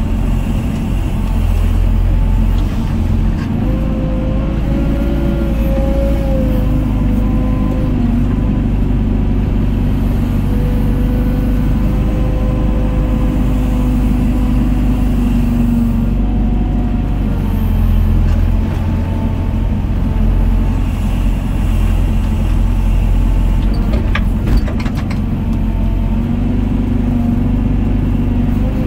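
Doosan DX55 excavator's diesel engine running steadily, heard from inside the cab, with a whine that rises and falls and swells as the arm and bucket swing loads of soil into a dump truck and dig. A few sharp clanks come through about three quarters of the way in.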